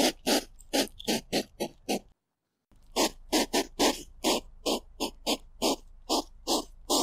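A hedgehog making rapid short breathy puffs, about three a second. They break off briefly about two seconds in, then resume.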